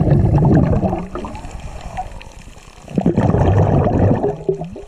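Underwater bubbles gurgling from a scuba diver exhaling through a regulator, in two loud rushes: one ending about a second in and another starting about three seconds in, with a quieter lull between.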